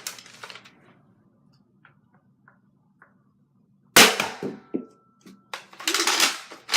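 Nerf blaster mechanism clicking, then one loud sharp crack about four seconds in and a quick run of rattling snaps near the end.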